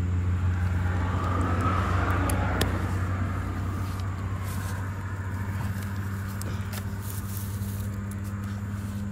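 A motor engine running steadily with a low hum. In the first few seconds a swell of noise rises and fades, like a vehicle passing, and a few light clicks sound.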